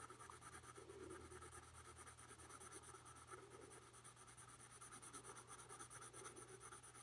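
Faint scratching of a soft 4B graphite pencil shading lightly on paper in rapid back-and-forth strokes.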